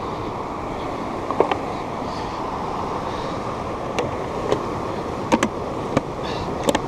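Steady rush of ocean surf and wind on the microphone, with a handful of short, sharp clicks and taps scattered through it.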